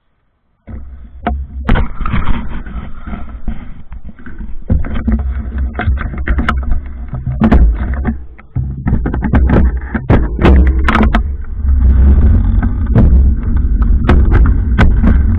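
Wind buffeting the microphone of a camera riding on a moving bicycle: a loud low rumble that starts abruptly about a second in, with many sharp clicks and knocks as the bike jolts along.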